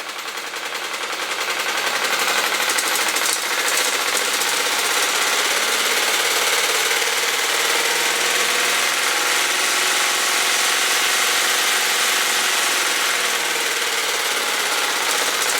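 A gutted sewing machine driven by a belted treadmill motor, clattering at high speed beyond its normal top speed of about 650 RPM. It speeds up and grows louder over the first two to three seconds, then runs steadily, shaking hard enough to walk on its mounting.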